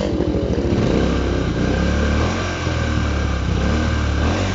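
Bristol 400cc motorcycle's air-cooled single-cylinder engine revved up from idle about a second in, held at raised revs, then dropping back near the end. The revs are raised to test the charging system's output.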